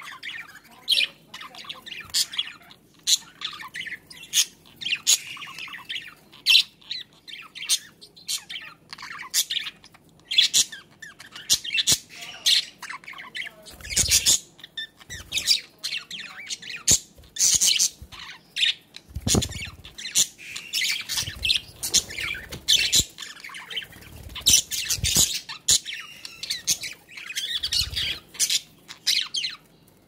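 Pet budgerigars chattering in a busy run of short, harsh squawks and chirps that follow one another closely. A few low thumps come in among the calls.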